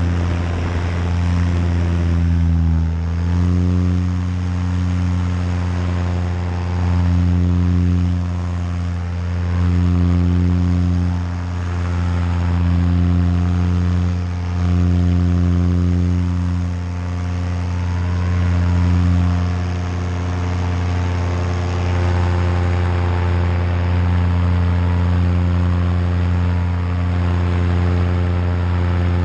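Nitro 200 paramotor engine running steadily with its propeller turning. The pitch drops slightly about three seconds in, and the level swells and dips every few seconds.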